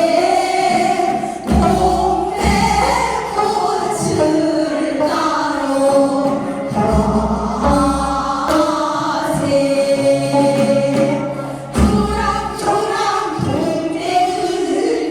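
Korean folk song (minyo) sung by voices in a group over drum accompaniment, with several heavy drum strokes through the melody.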